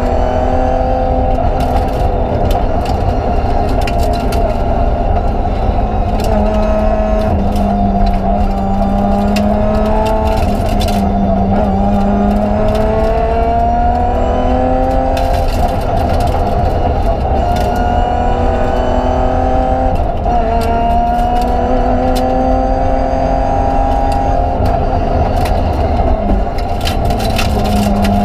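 BMW 325 Group A rally car's straight-six engine driven hard, heard from inside the cabin: the revs climb and drop again and again through gear changes and lifts for corners, over a heavy low drone, with occasional sharp knocks.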